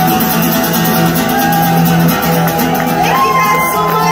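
Live acoustic guitar song with a singing voice; a long held sung note starts about three seconds in.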